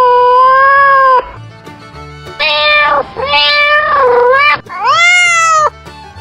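Domestic cat meowing: a long drawn-out meow that ends about a second in, then three more meows, the last one rising and falling in pitch.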